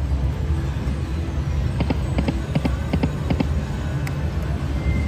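Huff n More Puff video slot machine playing out a spin: a quick run of clicks and knocks about two seconds in as the reels land, over a steady low casino hum.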